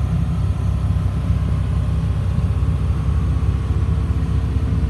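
2004 Blue Bird All American school bus engine running with a steady rumble at a high idle. The idle is stuck high.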